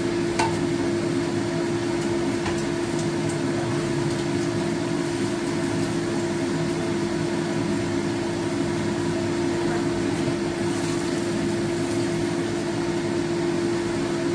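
Steady hum of a running motor, one constant tone with an even hiss over it, and a few faint ticks.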